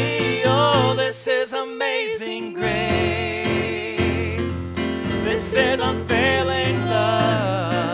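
Contemporary worship song sung by a man and a woman with keyboard accompaniment, long held sung notes over sustained chords.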